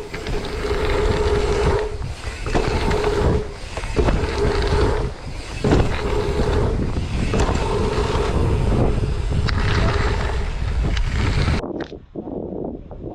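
Strong wind buffeting the microphone over the rolling rumble of a dirt jump bike on dirt, with a steady buzzing tone that comes and goes. It cuts off suddenly near the end.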